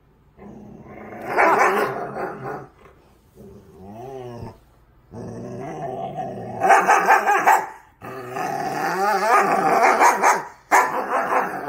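Husky play-growling while mouthing in a play fight, in about five drawn-out bouts with wavering pitch and short pauses between.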